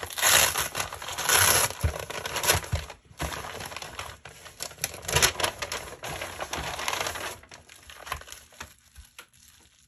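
Padded mailer envelope and bubble wrap crinkling and crackling as they are handled and opened, with many small crackles. It is loudest in the first few seconds and dies down near the end.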